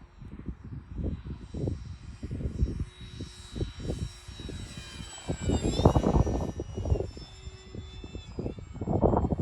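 Electric motor and propeller of a Durafly P-40 Warhawk foam RC warbird whining as it flies, the pitch sweeping downward as the plane passes by about six seconds in. Wind gusts rumble irregularly on the microphone, heaviest around the pass and again near the end.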